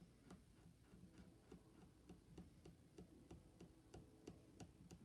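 Near silence: room tone with faint, regular ticking, about three to four ticks a second.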